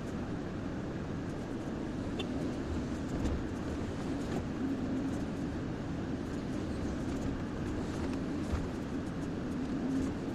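Kobelco SK140XM excavator's diesel engine running steadily while it digs and loads soil, with a few faint clicks over the drone.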